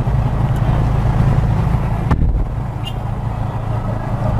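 Car engine idling with a steady low rumble, and a single knock about two seconds in.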